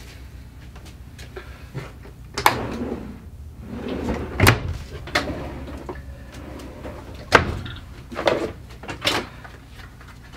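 Hard plastic kitchenware being handled and set down: four sharp knocks with clatter and rustling between, over a steady low hum.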